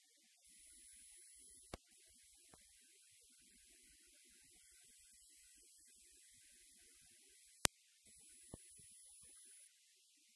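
Near silence: a faint hiss and thin high whine that cut in and out, with three short sharp clicks, the loudest about three-quarters of the way through.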